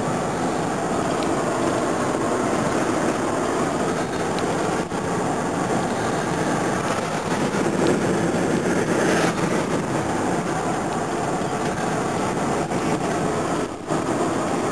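Steady road and engine noise inside a moving patrol car's cabin, with a brief dip near the end.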